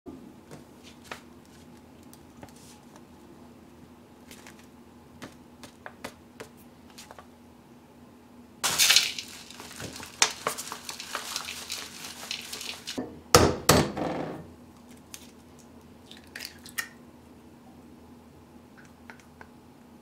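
Dry powdered bird bread mix poured from a paper bag into a glass bowl: the paper crinkles and the mix rustles into the bowl for about four seconds midway, with a second short, loud rustle as the pour ends. Light taps of handling come before and after.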